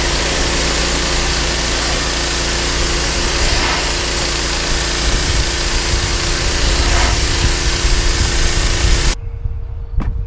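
Gas-engine pressure washer running, its wand spraying water onto wooden deck boards: a steady loud hiss over the engine's hum. The spray cuts off suddenly about nine seconds in.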